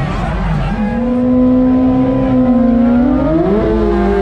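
Sport bike engine held at steady high revs on the drag strip starting line, then revving higher about three seconds in and dropping back near the end.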